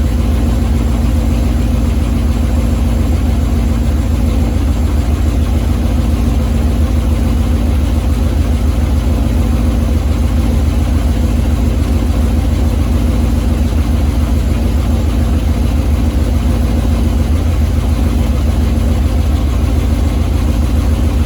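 C5 Corvette Z06's LS6 V8 idling steadily through its exhaust, with a fast, even low pulse. The exhaust is leaking at the joint where the X-pipe meets the mufflers.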